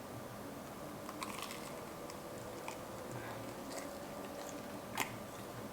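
A person eating close to the microphone: faint chewing and mouth sounds with scattered small clicks, the sharpest about five seconds in.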